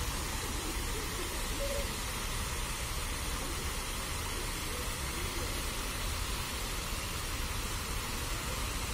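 Fountain water jets spraying and splashing steadily into a granite basin, an even rushing hiss.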